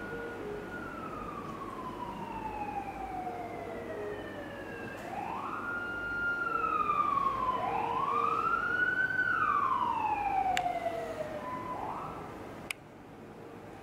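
Emergency-vehicle siren wailing, its pitch rising quickly and falling slowly over and over, with a second wail overlapping it in the middle where it is loudest. It cuts off suddenly with a click near the end.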